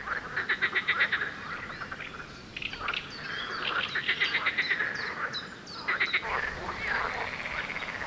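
Frogs croaking in a chorus: rattling trains of rapid clicks that come in bouts, with short high chirps over them.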